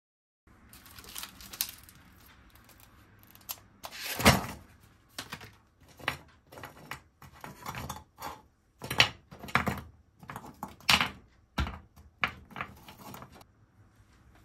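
Frozen gyoza being set down one by one in a nonstick frying pan: a string of irregular hard taps and clicks, with a louder thump about four seconds in.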